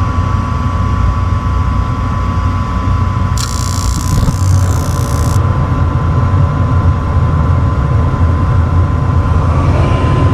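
Gas pack furnace unit running: a steady low mechanical rumble with a thin steady whine over it, and a high hiss for about two seconds a little over three seconds in.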